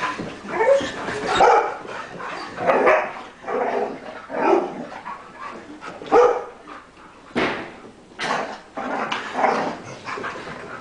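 Golden retrievers barking and yipping in play as they chase someone, about a dozen sharp barks at uneven intervals of half a second to a second.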